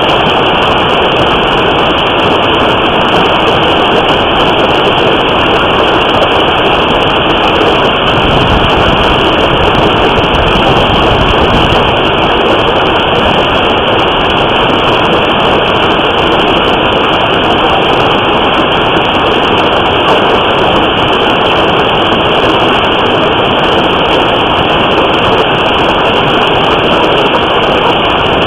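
Heavy hail hitting a house and vehicles: a loud, steady din of countless impacts, heard through a surveillance camera's microphone.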